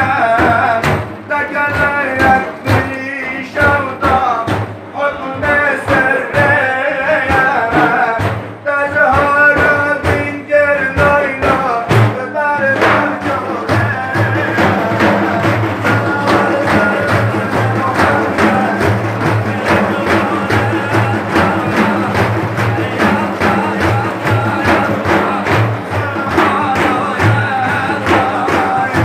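A male voice sings a Sufi religious hymn (ilahi) over steady drum beats. About twelve seconds in, the melodic singing gives way to a denser, evenly pulsing rhythm.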